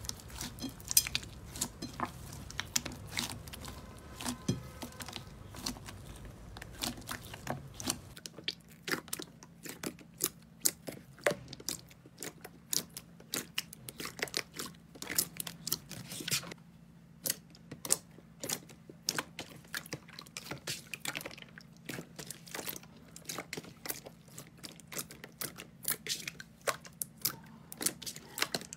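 Hands kneading, squishing and pressing slime, giving a dense run of irregular sticky crackles and pops. The character changes about eight seconds in, when a thick green slime is being pressed.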